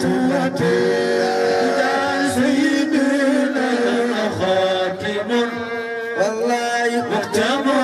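Men's voices chanting a Tijani Sufi devotional song through microphones and a PA, with long held notes.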